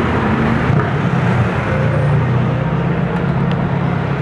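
Street traffic with a vehicle engine running close by, a steady low hum under a continuous wash of road noise.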